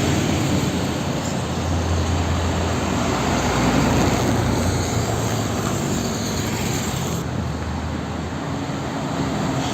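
Steady vehicle-like rumble, a constant hum under a dense hiss.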